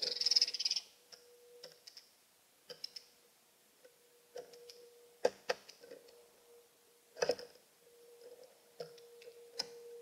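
Blue jay's beak pecking and tapping on a plastic bird feeder, close to the feeder's built-in microphone: irregular sharp taps, with a short rustling burst at the start and a faint steady hum underneath.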